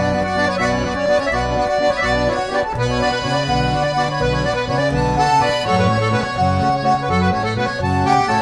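Accordion music, a sustained melody over a bass line that moves note by note in a steady rhythm.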